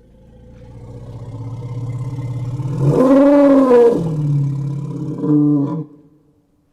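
Elephant call: a low rumble that swells in loudness over about three seconds, then breaks into a louder, higher-pitched arching cry for about a second, drops back to the low rumble and rises again in a second short higher cry before stopping about six seconds in.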